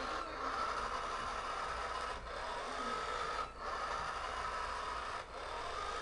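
Electric drive motor and plastic treads of a vintage Kenner remote-control Sandcrawler toy whirring steadily as it drives across a hardwood floor, with a brief break in the sound every second or two.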